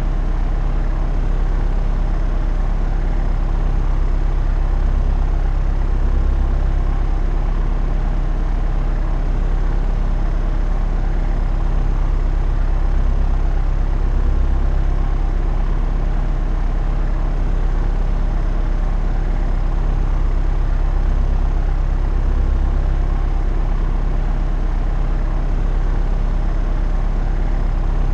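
Propeller aircraft in flight, heard as a steady, even drone of engine and propeller with a deep low hum and a slight slow swell and fade in loudness.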